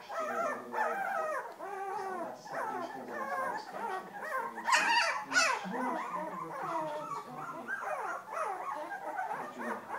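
Young puppies whimpering and yipping, many high, wavering cries overlapping one another, with two louder squeals about five seconds in.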